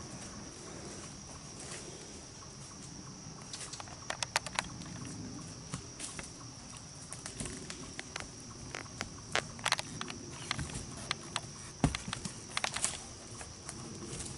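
Horse hooves walking through dry leaf litter on a woodland trail, with scattered crunches and snaps in small clusters. A steady high insect drone runs underneath.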